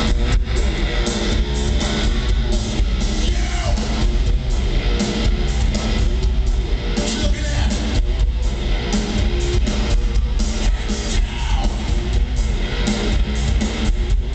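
Industrial rock band playing live through an arena PA: loud, dense electric guitar and drums, heard from far back in the audience.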